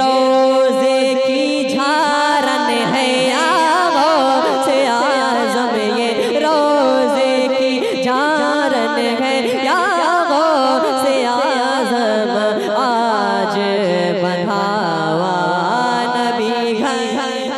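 A young male voice singing a naat into a microphone, holding one long note for about two seconds and then running into wavering, ornamented melodic phrases with no words made out. The singing eases off slightly near the end.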